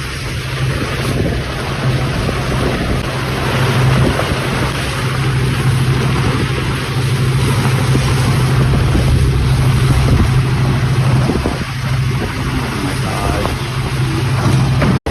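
Strong wind roaring and buffeting the microphone, with a steady low rumble underneath, in the noise of a passing tornado. It cuts out abruptly near the end.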